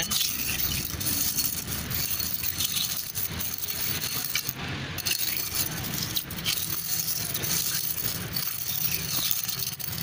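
Stone chips of a dense bituminous macadam sample being stirred by hand in benzene inside a bitumen extractor bowl: a continuous rattle and scrape of aggregate against the bowl. This is the solvent wash that dissolves the bitumen off the stones.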